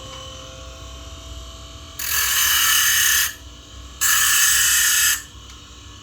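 Homemade angle grinder driven by a 775 DC motor, its disc biting into material in two harsh, hissing bursts of about a second each, with a low hum between them.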